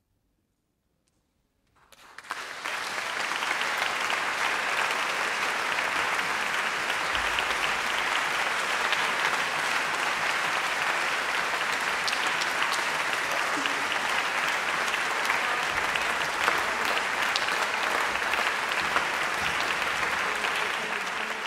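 Concert audience applauding: near silence, then the clapping breaks out about two seconds in and holds steady.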